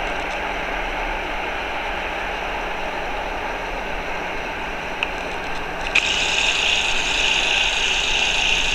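Steady rumble of a train passing at a distance. About six seconds in, a louder high hiss starts suddenly.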